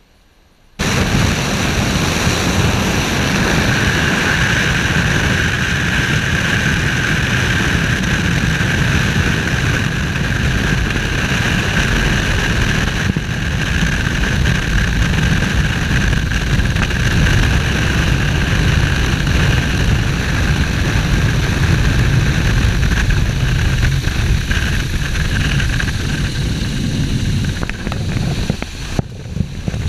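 Floatplane's engine and propeller running hard as the plane races across the water on its floats: a loud, steady drone with a steady high whine on top. It cuts in suddenly about a second in.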